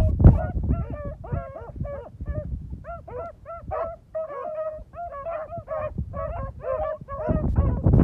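A pack of beagles baying as they hunt through cover: a rapid string of short, rising-and-falling bawls and yelps from several hounds at once. Wind buffets the microphone, louder near the end.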